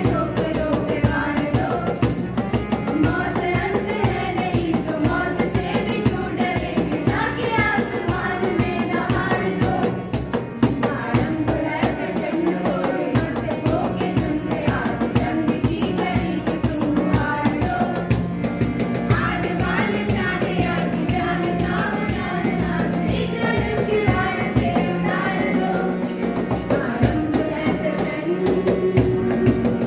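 A Hindi song with singing over a steady low drone and fast, even percussion.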